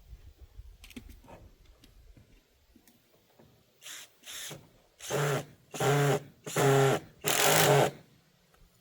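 Power drill driving fasteners into the run's frame to hold hardware cloth: two short squeezes of the trigger, then four longer runs of about half a second to a second each at a steady motor pitch.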